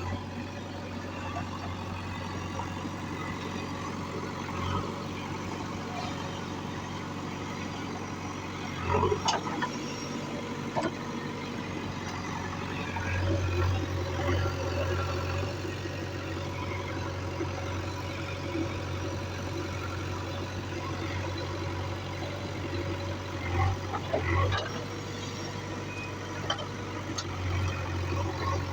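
Diesel engine of a JCB 3DX backhoe loader running steadily and rising in revs several times while it works. A few sharp clanks are heard, about nine seconds in and again near twenty-four seconds.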